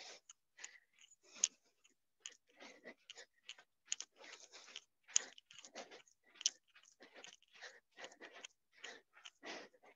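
Soft, irregular scuffs and rustles, several a second, from people doing a stepping exercise: feet tapping in alternation and clothes moving.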